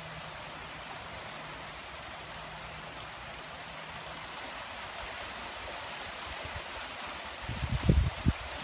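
Light steady rain falling on leaves, grass and wet pavement, an even hiss. A few low thumps on the microphone come near the end.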